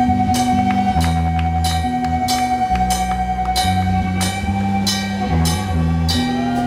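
Live band playing an instrumental passage: a drum kit hitting a cymbal on a steady beat about every two-thirds of a second, over a moving bass line and a long held high note.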